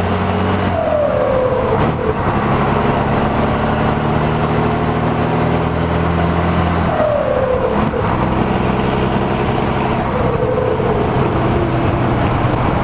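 Scania 112 truck's turbocharged six-cylinder diesel pulling under load, heard from inside the cab. The engine note breaks and a falling whine sounds about one, seven and ten seconds in, as the truck is shifted through its gears.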